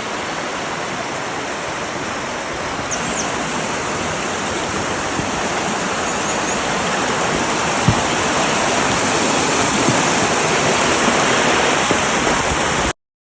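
Running water rushing steadily, like a mountain stream or small waterfall, growing slightly louder and then cutting off suddenly near the end.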